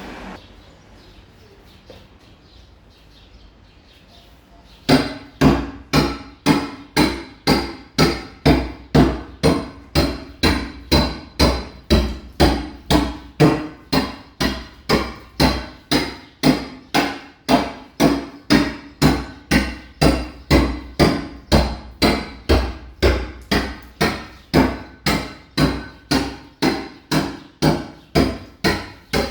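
Hammer blows at a building site, struck in a steady rhythm of about two a second, beginning about five seconds in after a stretch of low background noise.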